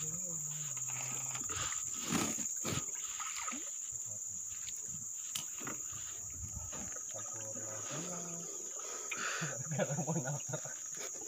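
Steady, high-pitched drone of insects in riverside forest vegetation, with faint low voices under it.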